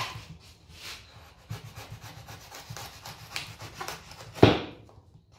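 Utility knife sawing down through the side of a corrugated cardboard box in short, irregular scraping strokes, with one much louder stroke about four and a half seconds in.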